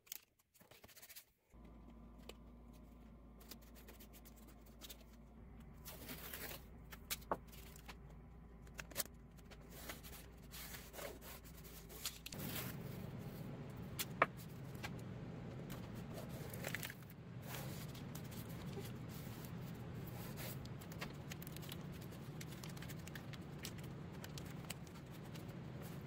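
Blue painter's tape being pulled off the roll, torn and pressed down onto the cardboard frame of an air filter and the plastic fan housing: faint, scattered ripping and crackling over a low steady hum.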